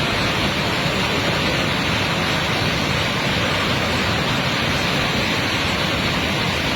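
Floodwater rushing past in a swollen river torrent: a loud, steady rush of water that doesn't change.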